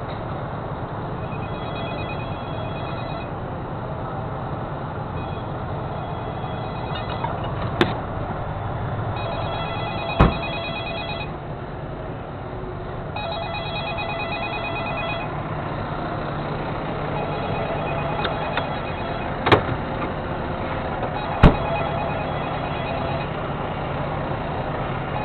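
A heavy truck's diesel engine idling steadily under a phone-like electronic ringing that comes in bursts of about two seconds, repeating every four seconds or so. Four sharp knocks fall in the middle part.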